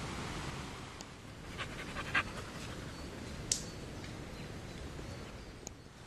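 A dog panting close by, with a few sharp clicks: a quick cluster about two seconds in, the loudest of them, and single ones later.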